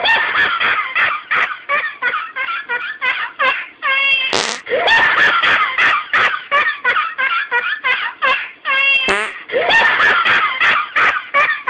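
A person laughing hysterically in rapid, breathless fits. It is broken twice, about four and nine seconds in, by a short raspy noise heard as a fart.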